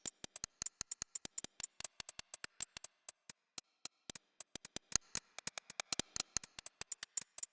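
A fast, uneven train of sharp clicks, several a second, louder from about the middle on.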